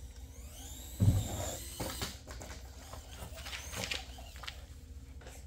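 Redcat MT-18 mini RC monster truck driving: a high motor whine rising and falling, a heavy thump about a second in as it hits, then a run of clicks and clatters from the bouncing tyres and chassis.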